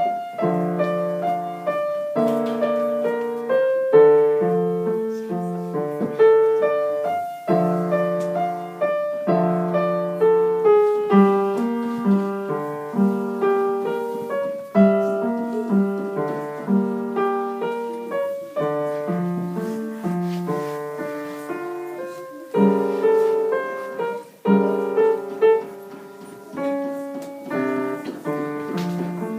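Piano playing an instrumental piece: melody over chords, each note struck and fading.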